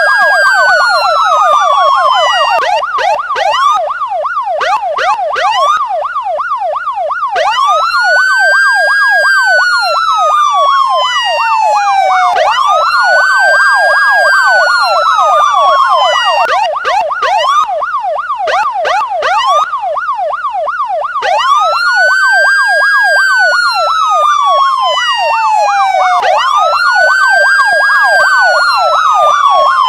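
Electronic police sirens, loud: a slow wail that rises quickly and falls away over about four seconds, layered over a rapid yelp sweeping up and down several times a second. The wail drops out twice, leaving only the yelp.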